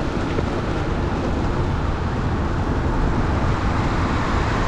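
Wind buffeting the microphone of a camera on a moving bicycle: a steady low rumble with a rushing hiss that grows slightly stronger.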